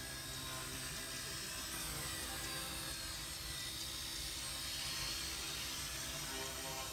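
XK K110 micro RC helicopter's brushless motor and rotor running with a steady whine as it hovers low and sets down on grass.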